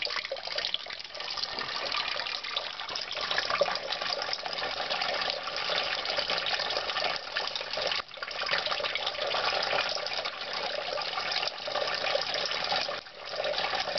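Streams of water from a homemade Kelvin water dropper's drip tubing splashing steadily into metal paint buckets, really loud, with brief dips about eight seconds in and again near the end.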